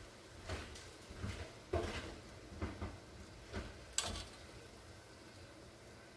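A kitchen utensil knocking and clinking lightly against cookware, about six soft knocks over the first four seconds, the sound of sausage and potatoes being spooned into the pan.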